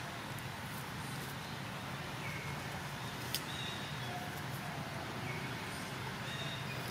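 Steady outdoor background hum with a few faint, short high bird chirps and one sharp click about halfway through.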